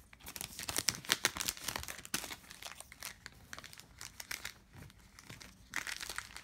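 Panini Prizm basketball card pack wrapper crinkling and tearing as it is opened by hand, a dense run of crackles that thins out briefly around five seconds in.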